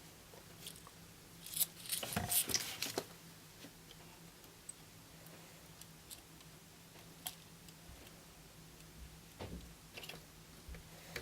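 Small scattered clicks and taps of hands working at a soldering bench, with a quick cluster of taps about two seconds in and a few single clicks later, over a faint steady hum.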